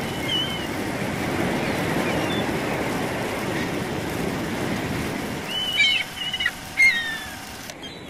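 Sea surf breaking and washing up a pebble beach as a steady rushing noise. Birds give a short chirping call near the start and a cluster of louder calls about six to seven seconds in, the loudest sounds here.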